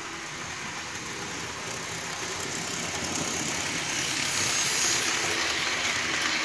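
Fleischmann model class 78 steam locomotive and its coaches running along the track, a steady motor and wheel noise that grows louder as the train comes close and passes, loudest about four to five seconds in.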